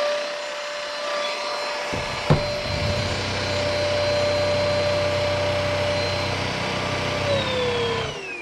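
Zyxrona TV83 cordless stick vacuum's brushless motor running with a steady whine. About two seconds in there is a sharp knock, and a lower hum joins. Near the end the motor is switched off and its pitch falls as it spins down.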